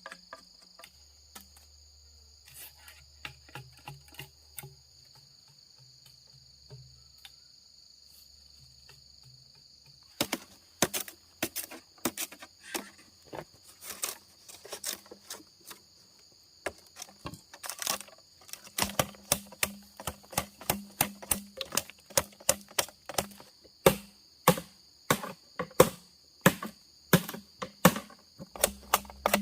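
A steady high insect drone, like crickets or cicadas, throughout. About a third of the way in, sharp irregular knocks or taps start, several a second, and they are much louder than the drone.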